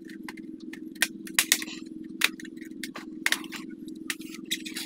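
Plastic palmrest top cover of an HP 2000 laptop being pried off the base by hand: a run of sharp plastic clicks and snaps as the retaining clips let go, over a steady low hum.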